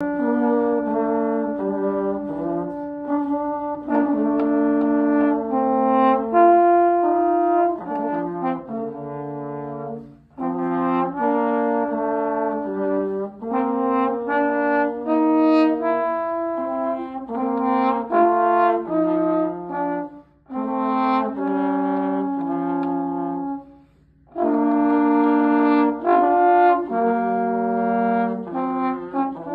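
Two slide trombones playing a duet in two-part harmony, held and moving notes, with three short breaks between phrases about ten, twenty and twenty-four seconds in.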